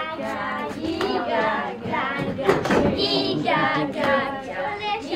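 A group of voices, children among them, chanting a count aloud in unison as strokes are dealt, with a few sharp smacks among the chanting.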